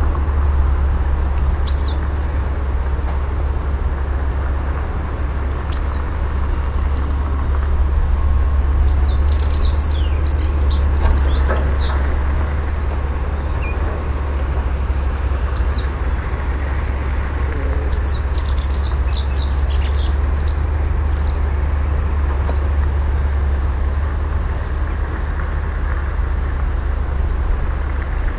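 Japanese wagtail calling: short, sharp high chirps, some single and two quicker runs of several, one about a third of the way in and one about two-thirds of the way in. A steady low rumble runs underneath and is louder than the calls.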